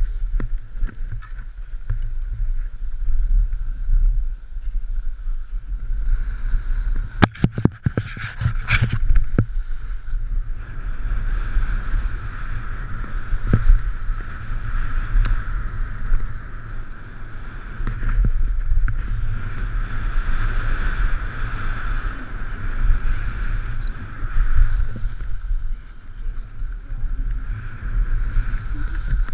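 Skis scraping and chattering over packed, chopped piste snow during a downhill run, with a steady rumble of wind buffeting the body-worn action camera's microphone. A quick burst of knocks and clatters comes about seven to nine seconds in.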